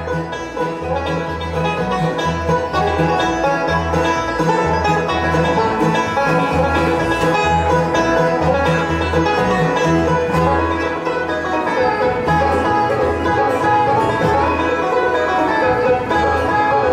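Bluegrass band playing: banjo, fiddle, mandolins and acoustic guitar over a steady pulse of upright bass notes.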